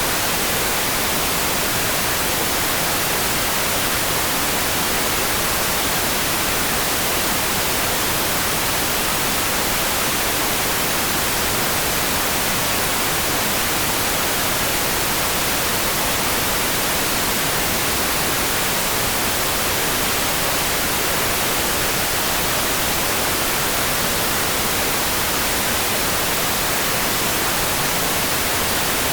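Steady, even hiss of heavy rain, so dense that no single drops stand out and it sounds much like white noise, unchanging throughout.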